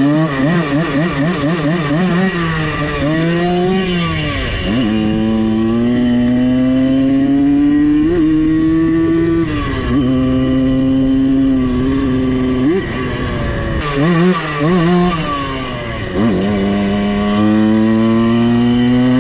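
Simson S51 moped's tuned 85 cc two-stroke single-cylinder engine under hard acceleration. The throttle is worked on and off, then the revs climb in long pulls and drop sharply at each gear change, several times.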